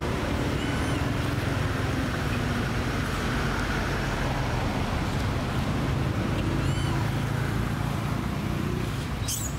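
Steady low hum of a distant motor engine, with a few short high-pitched chirps: one about a second in, one near the middle and one near the end.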